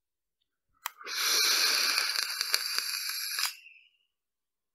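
A vape's fire button clicks once, then the atomizer coil in a SMOK sub-ohm tank sizzles and crackles as it vaporises e-liquid for about two and a half seconds before cutting off.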